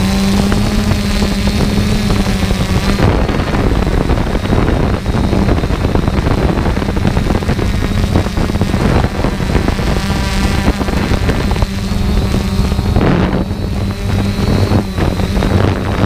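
Quadcopter drone's motors and propellers buzzing steadily, picked up on its own camera microphone along with wind noise; the hum shifts in pitch now and then as the drone manoeuvres.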